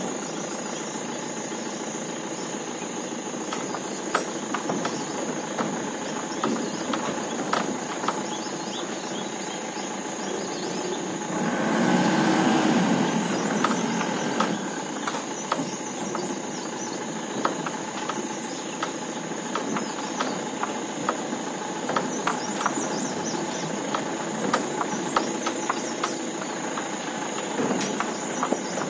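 Mahindra Bolero pickup's diesel engine running as the truck is driven over a rough, stony dirt track, with many small knocks and rattles from the bodywork over the bumps. The noise swells for about a second roughly twelve seconds in.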